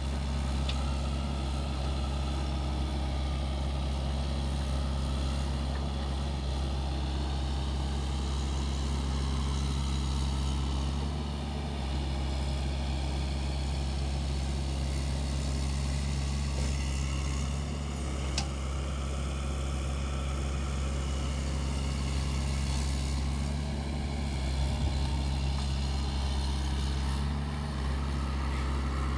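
SANY SY75C excavator's diesel engine running steadily, a constant low drone that holds even throughout, with a couple of faint clicks.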